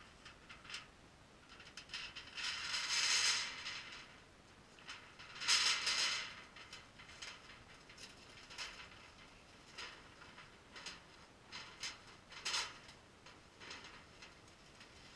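Thin sheet metal of a roll-up stove pipe rattling and crinkling as it is unrolled and formed into a tube. Two longer rustling rattles come in the first six seconds, then a run of light clicks and taps.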